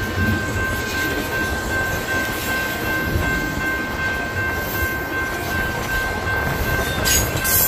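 Double-stack intermodal container train rolling through a grade crossing: a steady rumble of well cars on the rails, with a steady high-pitched tone over it and a short burst of hiss near the end.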